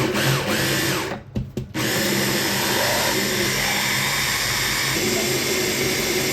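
A small electric kitchen appliance motor, such as a blender or mixer, running loudly: in short spurts at first, then steadily from about two seconds in.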